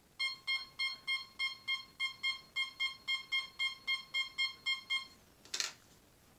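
Home-built two-tone metal detector beeping in quick even pulses of one steady pitch, about three and a half a second, as a hand passes in front of the search coil: the detector is signalling a target. The beeping stops about five seconds in and is followed by a brief scratchy noise.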